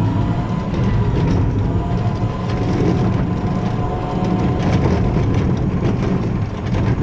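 Battery-powered Mean Green ride-on mower driving and cutting: a steady electric-motor whine over a low rumble, with scattered ticks and clicks.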